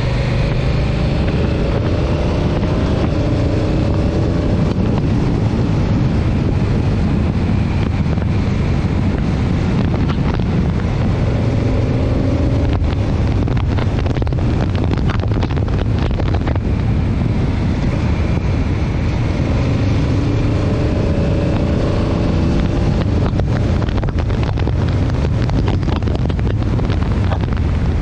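Motorcycle riding at speed, heard from a handlebar-mounted camera: heavy wind rush on the microphone over the engine. The engine's pitch climbs three times, as it pulls through the gears.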